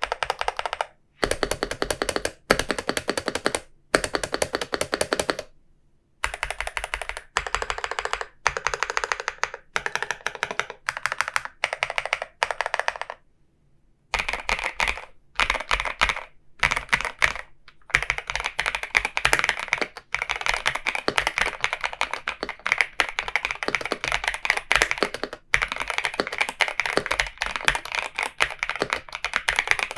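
Typing on an Epomaker Shadow-X mechanical keyboard fitted with Epomaker Flamingo switches: rapid keystroke clacks in runs, broken by a few short pauses.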